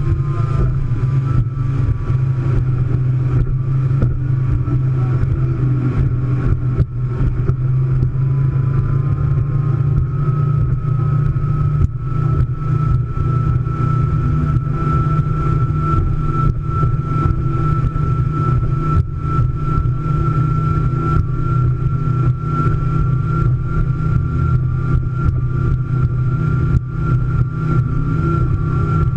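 Scarab powerboat's engines running steadily at cruising speed: a deep, even drone with a thin, steady high whine above it.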